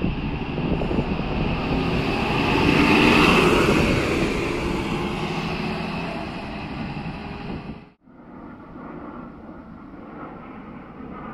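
Articulated city bus pulling away past the camera, its engine and tyres loudest about three seconds in, then fading as it drives off. About eight seconds in the sound cuts off suddenly to a quieter, steady drone of an airplane flying overhead.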